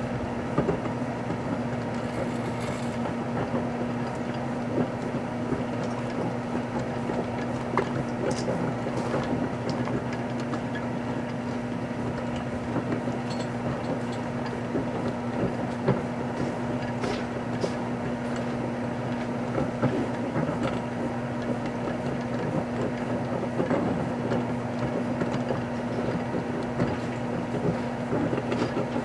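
Microwave oven running with a steady low hum, with scattered small crackles and clicks from a computer mouse, stuffed with a wet wipe and packaging, heating inside.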